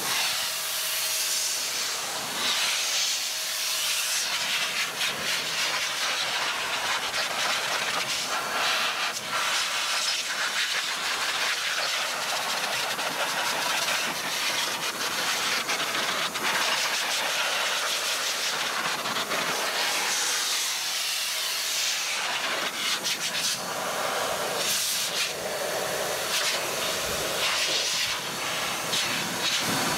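Steady hiss of air from a handheld air-powered spray gun, with a bottle underneath, being worked over a car's wheel.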